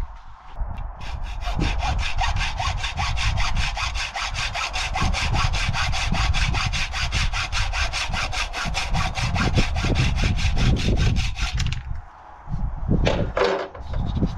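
Hand hacksaw cutting with quick, even back-and-forth strokes for about ten seconds, then stopping. A short scraping sound follows near the end.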